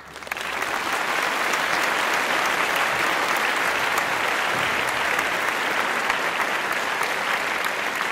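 A crowd applauding, swelling in over the first half second and then holding steady.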